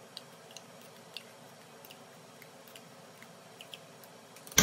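Faint, scattered small clicks and scrapes of a metal spoon scooping tomato paste out of a tin can, over a low steady hiss.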